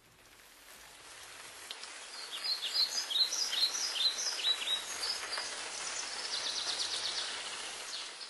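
Birds singing over a steady outdoor hiss that fades in: a run of quick, high, falling chirps, then a fast trill near the end.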